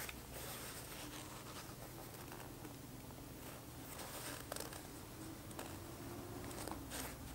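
Faint scratching and rustling as a curved needle held in small pliers is worked through thick neoprene, with a few light clicks, over a steady low hum.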